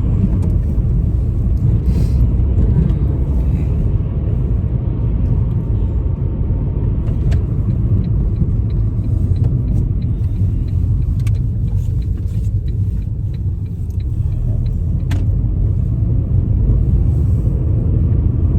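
Steady low rumble of a car on the move, engine and road noise heard from inside the cabin, with a scatter of faint clicks about halfway through.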